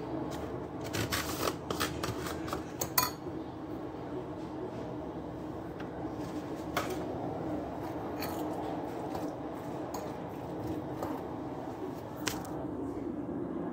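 Kitchen handling clatter: a quick run of clicks and knocks from dishes and utensils in the first few seconds, the loudest about three seconds in, then a few separate knocks, over a steady hum.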